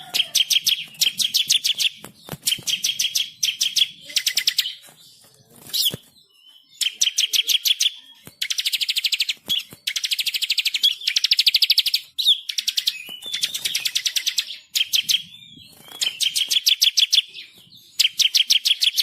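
Songbird singing loud, rapid high-pitched trills in repeated phrases of about a second each, with short gaps between them and a brief lull with a few short calls about five seconds in.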